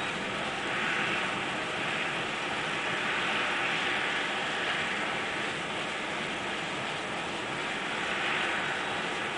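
A steady rushing background noise that swells and eases slowly every few seconds, with no distinct calls or knocks.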